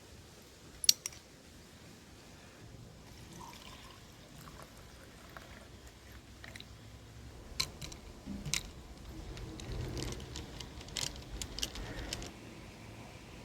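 Drink-making handling sounds: a few sharp clinks and knocks, the loudest about a second in, with liquid being poured and stirred in the later part.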